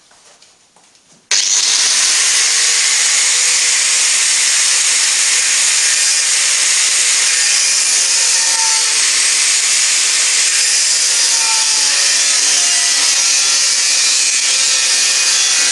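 Angle grinder with a cutting disc cutting through 10 mm thick stainless steel plate: a loud, steady, hissing grind that starts suddenly about a second in.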